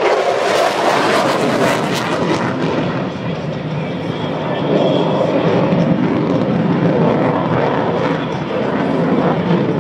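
Loud, steady jet engine noise from a Thunderbirds F-16 fighter as it makes a low pass over the airfield and flies off into the distance.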